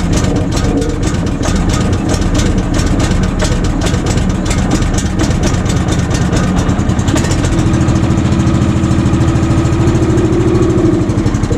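Kohler gasoline engine on a bandsaw sawmill running just after an electric start, with a rapid, rough firing beat. About seven seconds in, the note evens out into a steadier hum.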